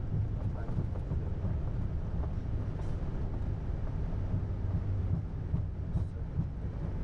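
Steady low rumble in an Airbus A320 cockpit during the landing rollout, as the airliner rolls along the runway and slows down after touchdown.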